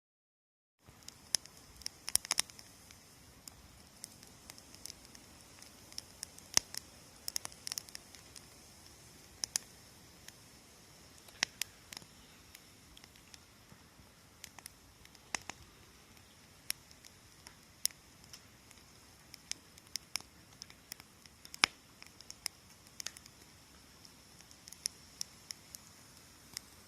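Wood fire crackling: irregular sharp pops and snaps over a soft steady hiss, starting about a second in.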